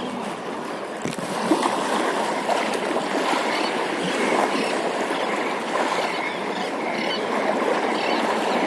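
Steady wash of water, waves lapping and splashing.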